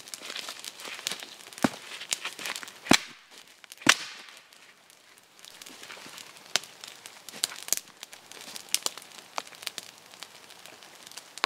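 Small, freshly lit fire of birch bark and dry twigs crackling, with a few sharper pops in the first few seconds; it is catching well.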